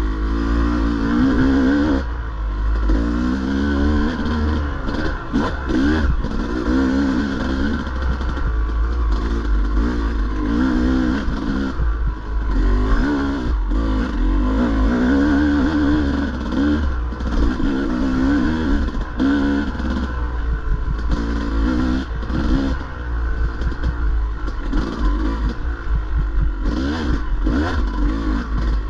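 Dirt bike engine revving up and dropping back again and again as the rider works the throttle, over a steady low rumble, with a few short knocks.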